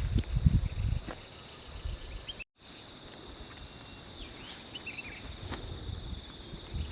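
Steady high-pitched insect chorus with low thumping in the first second. The sound cuts out for a moment about two and a half seconds in, and a short gliding call and a few quick chirps come shortly after.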